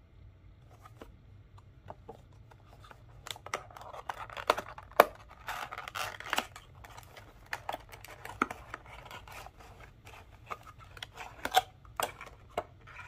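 Cardboard model box being opened and a clear plastic clamshell tray slid out and handled: a run of crackles, scrapes and sharp clicks, starting about three seconds in and loudest about five seconds in and again near the end.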